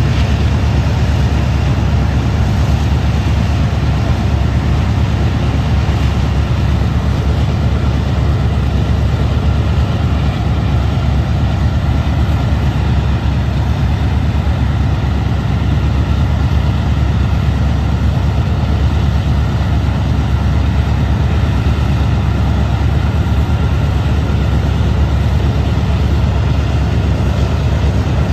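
Diesel locomotive engines running at steady high power during a load test after repair: a loud, even low drone that holds without change.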